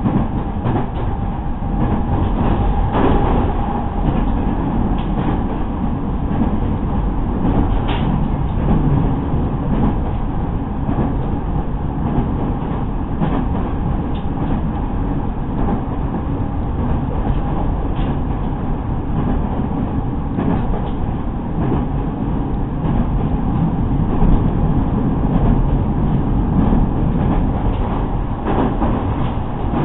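Inside a JR East 209 series 2000-subseries electric multiple unit running at speed: a steady rumble of wheels on rail, with a few sharp clicks now and then.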